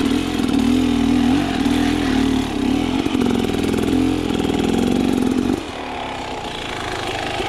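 Beta Xtrainer 300's two-stroke engine being revved in short, wavering blips, held higher for a couple of seconds, then dropping back to a lower, pulsing idle about five and a half seconds in.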